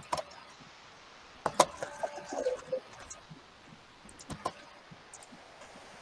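A few sharp clicks over a quiet line: one right at the start, a louder double click about a second and a half in, and another past four seconds, with a brief faint pitched sound between them.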